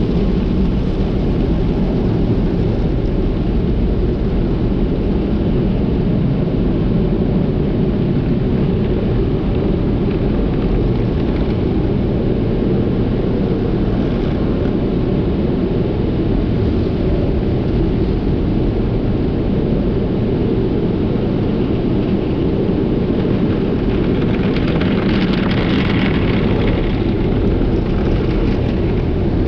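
Automatic tunnel car wash heard from inside the car: spinning cloth brushes and water spray beating on the body and windshield make a steady, heavy low rumble. A brighter hiss of spray rises for a few seconds near the end.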